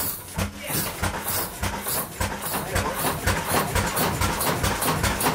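Century-old Kromhout hot-bulb marine engine running with an even beat of knocks, about four to five a second.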